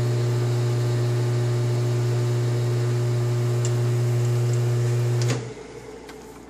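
Metal lathe running with a steady low hum while a chambering reamer cuts a .308 Winchester chamber in a rifle barrel. The motor is switched off with a click about five seconds in, and the hum stops almost at once.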